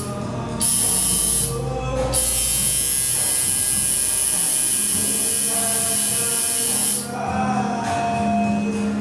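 Tattoo machine buzzing steadily, cutting out briefly twice in the first couple of seconds and stopping about seven seconds in, with background music and singing alongside.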